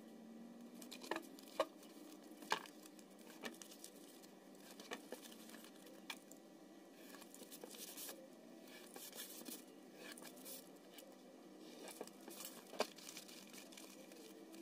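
Reflective foil sheet being handled and folded around a cardboard box: faint crinkling of the foil, with a few sharp taps in the first few seconds and another near the end.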